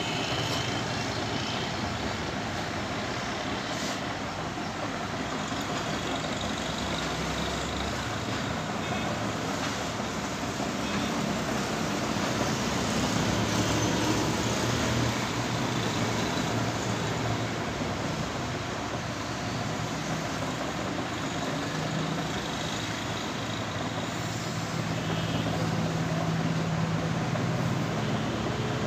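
Steady background din of road traffic, with a low engine hum that comes and goes.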